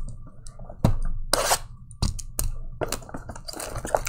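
A shrink-wrapped trading card box handled by gloved hands: a few separate clicks and scrapes, then a denser crackle of the wrap being worked open near the end.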